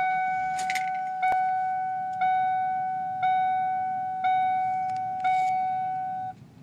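Seatbelt warning chime of a 1996 Mercury Grand Marquis at key-on: one bell-like tone struck six times about a second apart, each fading before the next, stopping after about six seconds. A brief rustle and clicks near the start.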